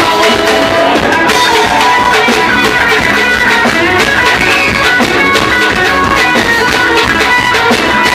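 Live band playing loudly, an instrumental passage with electric guitar over a steady drum-kit beat.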